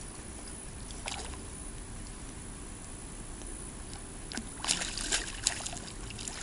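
Water splashing and sloshing as a hooked fish is played at the surface: a brief splash about a second in, then a quick run of splashes near the end.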